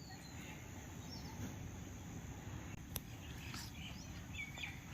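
Faint outdoor ambience with a few faint bird chirps near the end and a single sharp click about three seconds in.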